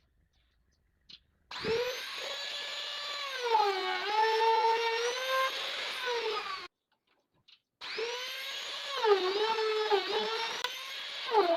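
A handheld electric power tool's motor starts up about a second and a half in and runs with a whine that dips and recovers in pitch. It stops abruptly and starts again about a second later.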